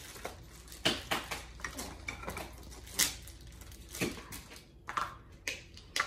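Small plastic package being worked open by hand: scattered crinkles and sharp clicks of stiff plastic, a few at a time, with quiet stretches between.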